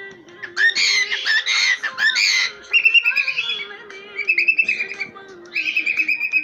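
Cockatiel chattering in a string of scratchy bursts, then whistling high, held, warbling notes in three phrases.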